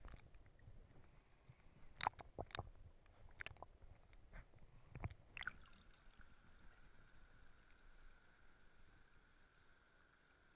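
Handling noise of an action camera held underwater in a river: a handful of sharp knocks and water sloshing around the housing, loudest at about two seconds. After about five and a half seconds the camera leaves the water and only a faint steady hiss of flowing water remains.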